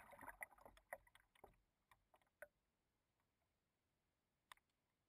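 Small irregular slaps of water against the hull of a Miss Geico RC catamaran drifting with its motor dead, dying away within about two and a half seconds to near silence. A single sharp click follows near the end. The boat has stopped dead and will not respond to any commands.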